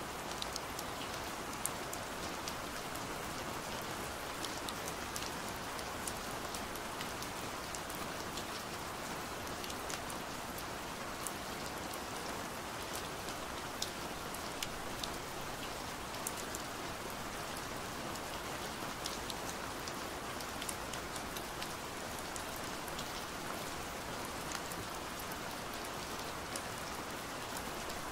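Steady rain on window glass: an even hiss with many small, sharp drop ticks.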